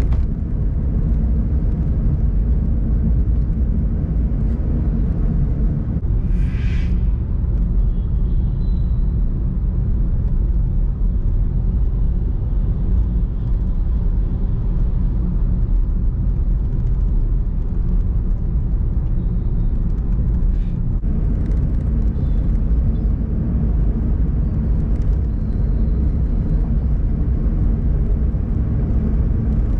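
Car driving along a highway: steady low rumble of road and engine noise, with a short higher-pitched tone about six seconds in.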